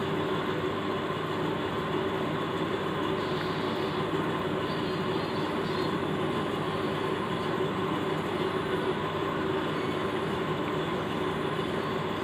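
Steady mechanical drone with a faint hum, unchanging throughout, with no distinct knocks or other events.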